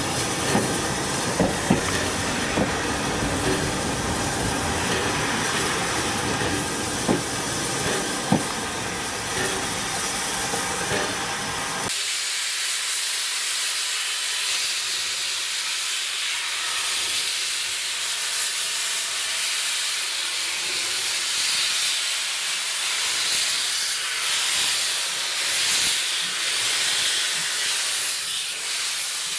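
A steam train running with a dense rumble and several sharp knocks and clanks. About twelve seconds in, the sound cuts abruptly to a steady loud hiss of escaping steam from a steam locomotive.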